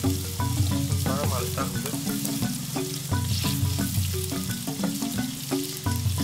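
Tofu cubes sizzling in hot oil in a wok over a wood fire, stirred with a homemade coconut-frond spatula. Background music with a steady beat plays under the frying.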